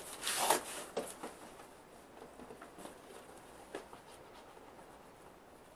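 Cardboard shipping box being handled and set on a table, rustling and scraping, loudest in the first second, then only a few faint taps.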